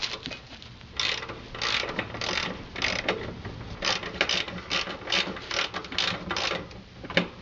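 Socket ratchet wrench clicking in a run of short back-and-forth strokes, about two a second, starting about a second in, as a 15 mm skid plate bolt is turned out.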